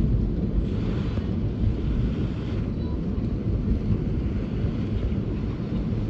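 Typhoon wind blowing hard and buffeting the microphone with a steady low rumble, with a stronger rushing gust about a second in.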